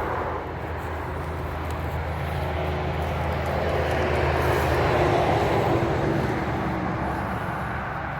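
A motor vehicle passing on the road, its noise swelling to a peak about five seconds in and then fading, over a low engine hum.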